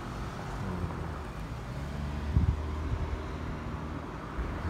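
Road traffic on a city street: passing cars make a steady low rumble with engine hum. There is one brief low thump about halfway through.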